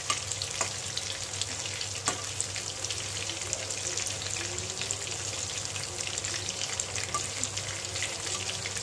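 Chicken pakoras deep-frying in hot oil in a steel kadai: a steady sizzle full of small crackles and pops. A few sharper clicks come from a metal spatula knocking the pan as the pieces are turned.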